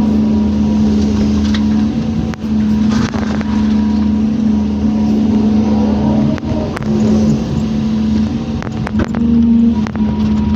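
Excavator's diesel engine running steadily, with occasional sharp knocks, several close together near the end.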